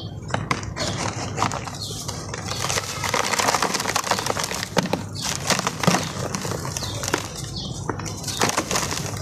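Dry sand-cement blocks crushed and crumbled by hand, a continuous gritty crunching and crackling full of small sharp cracks, with loose sand pouring and pattering into a plastic tub.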